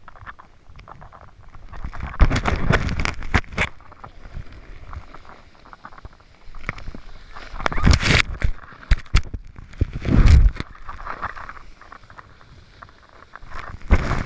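Irregular rushes of noise from a snowboard ride, the board scraping over snow with gusts of wind on the microphone. The loudest surges come about two seconds in, around eight seconds and around ten seconds, with quieter stretches between.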